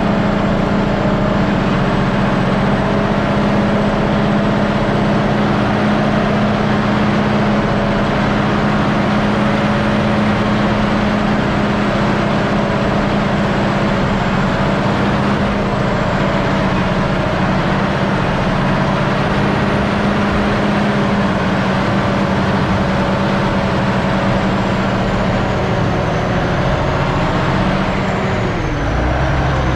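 Heavy farm machinery engine running steadily under load, a constant low hum with a slight dip in pitch near the end.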